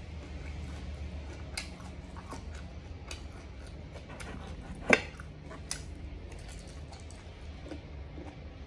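Close-up mouth sounds of chewing braised pig ear, tongue and tail: scattered wet clicks and smacks. One sharp, much louder click comes about five seconds in.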